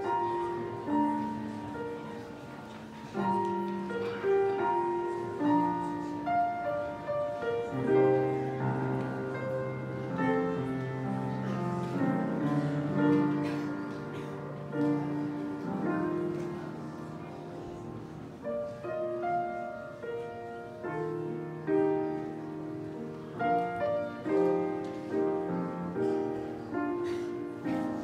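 Grand piano playing a slow introduction, single notes and chords struck and left to ring and fade.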